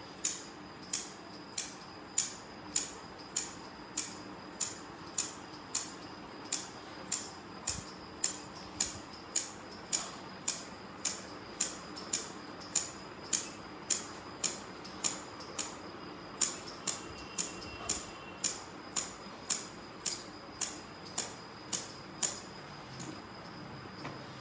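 A hand cutting tool trimming the pile along a rug's edge, a sharp metallic snip repeating at a steady rhythm, a little under two a second.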